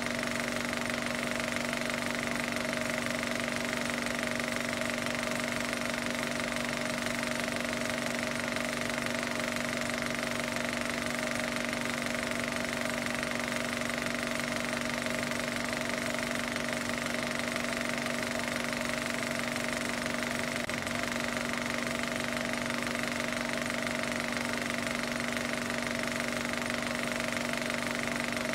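A steady machine-like running sound: a fast, even rattle over a constant hum with several fixed tones, unchanging throughout.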